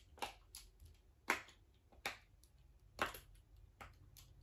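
Single Pull 'N Pop fidget toy being popped: a series of sharp pops, about one a second, with fainter clicks between, the loudest about a second in and three seconds in. Its pop is louder than that of the smaller poppets.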